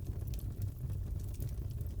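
Crackling fireplace: a steady low rumble of burning with many small, irregular pops and snaps.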